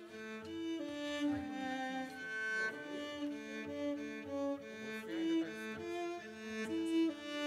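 Cello played with the bow: a melody of held notes, moving to a new note about every half second.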